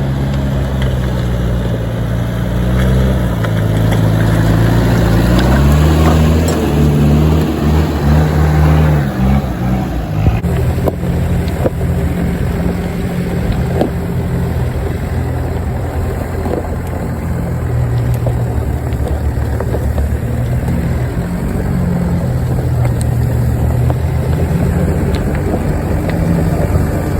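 A 4x4's engine running as it drives a rough off-road track, its pitch rising and falling with the throttle. The sound changes abruptly about ten seconds in, then runs at a steadier pitch.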